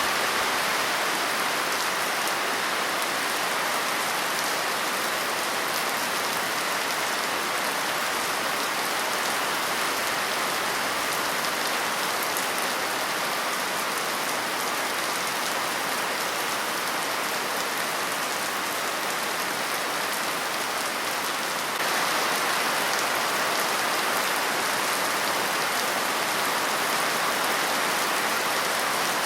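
Steady rain falling and pattering on a surface, an even wash of sound that becomes a little louder about three-quarters of the way through.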